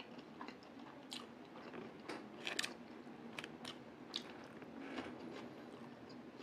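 A person chewing a mouthful of food, heard as faint, irregular crunchy clicks, the loudest about two and a half seconds in.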